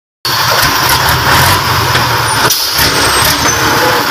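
Heavy log truck's engine labouring under a full load of timber on a steep muddy climb, with loud engine noise that cuts in just after the start and breaks off briefly about halfway through before carrying on.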